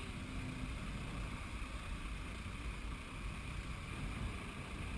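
Sportfishing boat's engine running steadily, with wind and water noise.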